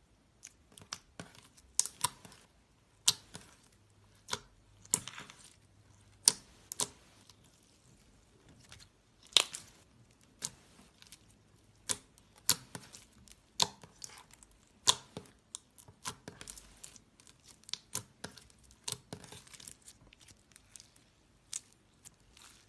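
Clear blue slime with colourful beads being squished and played with by hand, making irregular sharp clicks and pops, a few a second.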